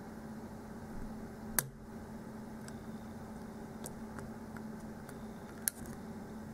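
Faint clicks and ticks of a hook pick probing the pins of a lock held in a false set, with two sharper clicks, one about a second and a half in and one near the end, over a steady low hum.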